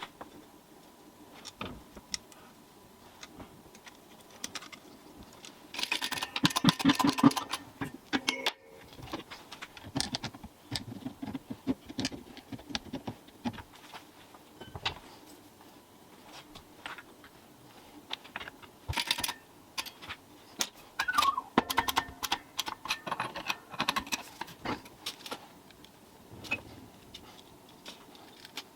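Irregular clinks and rattles of small metal parts and tools being handled, with busier clattering about six seconds in and again a little past twenty seconds.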